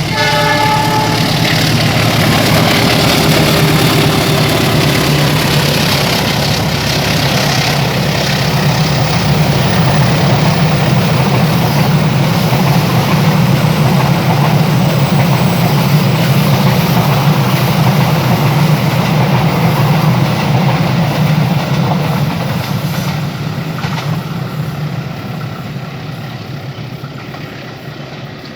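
Taksaka express train passing close by: the last of its long horn blast in the first second, then the steady heavy rumble of the diesel locomotive and the carriages on the rails. The rumble fades away over the last several seconds as the train recedes.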